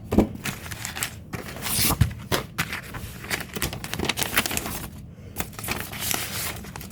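Packaging of an Amazon Fire HD 10 tablet being torn and rustled open: irregular tearing and crinkling with scraping and a few sharp clicks.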